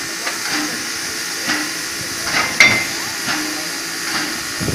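Pt47 steam locomotive standing with steam hissing steadily and a faint regular knock about once a second. About halfway through there is one sharp metallic clank with a short ring as the screw coupling between locomotive and carriage is worked by hand.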